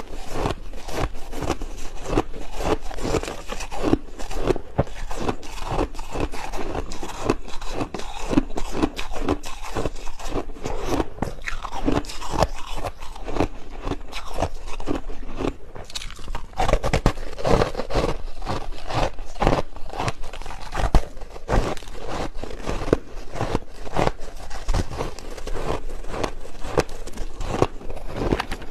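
Soft crushed ice being bitten and chewed in big bites close to a clip-on microphone: a dense, continuous run of quick crunches.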